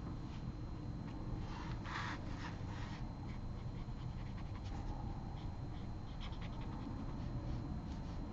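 Faint scratching of a pen drawing on sketchbook paper, in short strokes, over a steady low hum.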